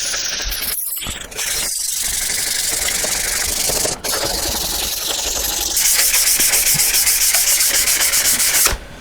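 120-grit abrasive being worked over the rusty metal bed of a scroll saw: a steady rasping rub that breaks off briefly three times, gets louder about six seconds in, and stops just before the end.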